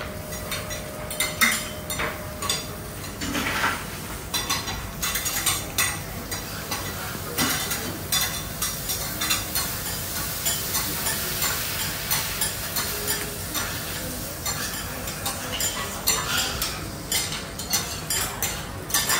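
Food sizzling on a teppanyaki hot plate, with metal spatulas scraping and clacking on the griddle in quick, irregular strokes.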